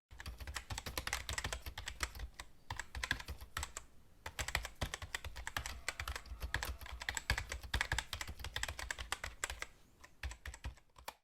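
Rapid, irregular clicking and tapping, many sharp clicks a second with short pauses between runs.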